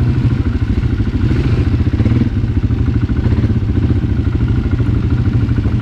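ATV (quad bike) engine running steadily at an even pitch as it is ridden along a dirt trail.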